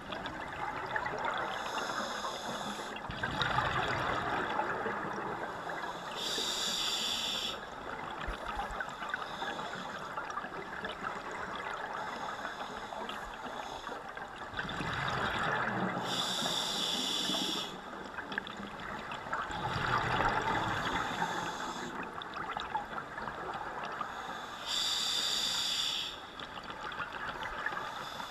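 Scuba diver breathing through a regulator underwater: three short hisses of inhalation through the demand valve, about nine seconds apart, with longer bubbling rushes of exhaled air in between.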